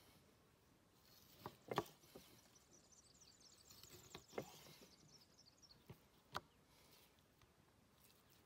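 About half a dozen faint knocks of a large kitchen knife meeting a wooden chopping board while slicing raw venison into steaks, the loudest near two seconds in. A bird twitters faintly in the background between about three and six seconds in.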